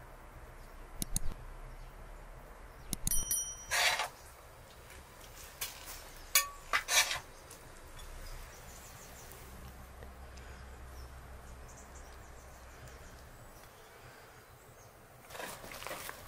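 Metal serving spoon clinking and scraping against a metal serving tray and a ceramic plate as rice pilaf is dished out. There are a handful of sharp clinks, one ringing on briefly, with short scrapes between them and another near the end.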